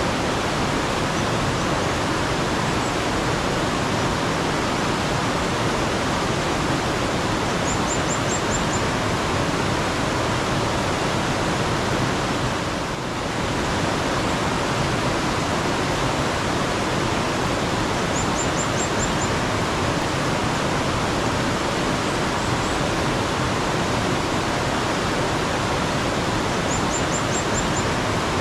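Steady flowing water of a mountain stream, with a bird giving a short, high trill of five or six quick chirps three times, roughly ten seconds apart.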